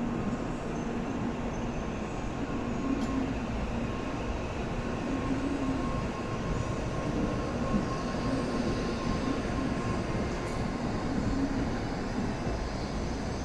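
Shinkansen train moving along the station platform: a steady rail running noise with a faint steady whine.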